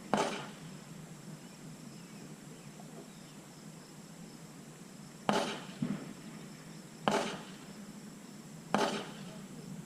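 Gunshots at a shooting range: one shot right at the start, then after a pause three more shots less than two seconds apart.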